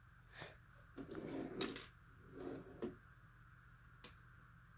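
Faint handling noise: a few light clicks and knocks, with one sharper click about four seconds in.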